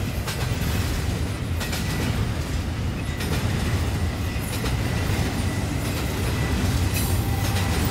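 Double-stack container train's well cars rolling past close by: a steady low rumble of wheels on rail with occasional clicks.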